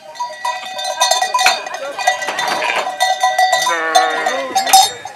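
Sheep bells clanking and ringing, with the metal hurdles of a handling race rattling as the ewes jostle through. A sheep bleats about four seconds in.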